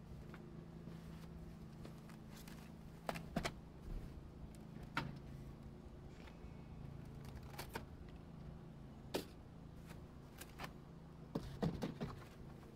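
Packaging being handled during unboxing: scattered clicks and rustles every second or two, over a steady low hum.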